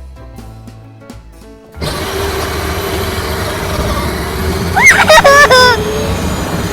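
Background music with a beat that cuts off about two seconds in. It gives way to the steady whine of an 18-volt-upgraded electric ride-on toy car's motor over the noise of its wheels, with loud, high, gliding squeals about five seconds in.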